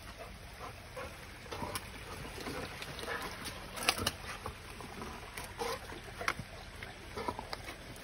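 A pit bull sniffing around wet creek rock, with scattered small clicks and scuffs as she moves, over faint trickling creek water.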